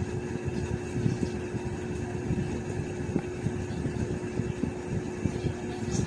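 Bosch electric drill running steadily, its motor giving a constant whine over an uneven low rumble.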